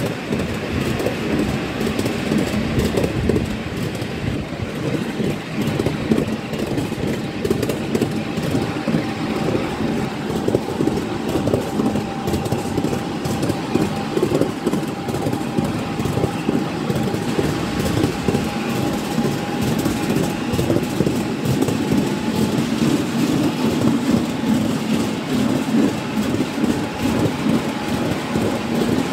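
Ride-on miniature railway train running along its track, heard from a passenger car: a steady rumble of wheels on rail with frequent small clicks, and a faint steady whine through much of it.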